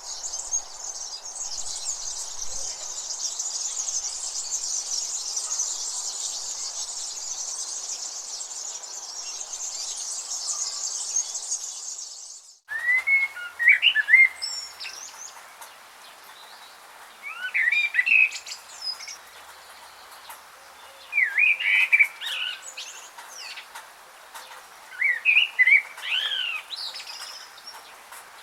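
Songbirds in the open. First comes a dense, continuous high-pitched chorus of chirps, which stops abruptly about 12 seconds in. After that, a single bird sings short warbling phrases of quick rising and falling notes, roughly every three to four seconds.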